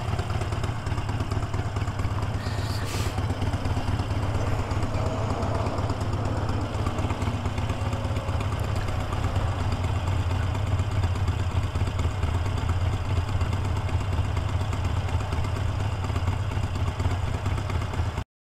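Motorcycle engine running steadily, with a brief click about three seconds in; the sound cuts off abruptly near the end.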